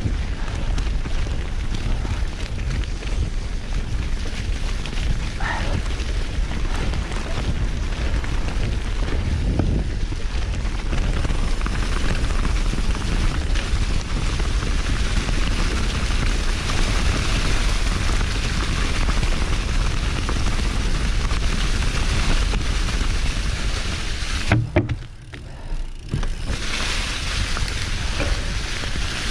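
Marin Team Marin 2 hardtail mountain bike ridden over a dry-leaf-covered forest trail: a steady rush of tyre noise and wind rumbling on the microphone. There is a single knock about three-quarters of the way through, after which the noise drops for about a second before coming back.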